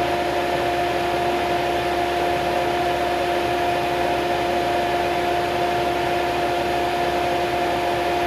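A fan running steadily, with a constant two-note hum over its whirr.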